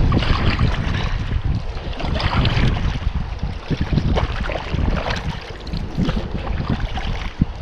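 Wind rumbling on the microphone, with water splashing from irregular paddle strokes about once a second.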